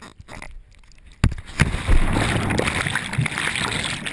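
Cliff jump into a creek heard through a waterproof camera housing: a sudden splash of water entry about a second in, then loud, muffled underwater rushing and bubbling.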